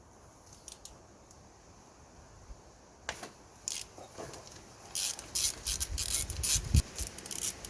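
Ratchet with a 10 mm socket undoing a glow plug from a VW 1.9 TDI diesel engine. A few faint clicks come first, then quick runs of ratchet clicking from about five seconds in.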